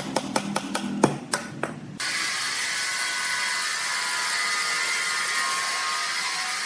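Sawmill machinery: a run of sharp clicks and knocks, then an abrupt change about two seconds in to a steady, high-pitched machine noise with a faint whine running on.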